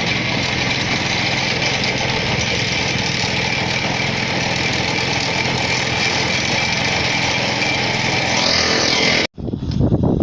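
Engine of road-repair machinery running steadily with a broad hiss. About nine seconds in it breaks off abruptly, and gusty wind buffeting the microphone follows.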